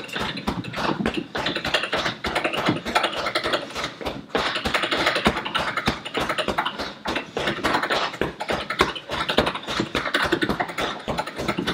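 Fast, steady run of straight punches landing on a hanging Everlast heavy punching bag, a quick string of slaps and thuds several times a second.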